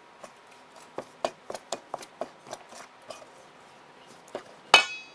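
A metal utensil stirring batter in a stainless steel mixing bowl, a run of irregular clicks against the bowl. Near the end comes one louder, ringing clang as it strikes the bowl.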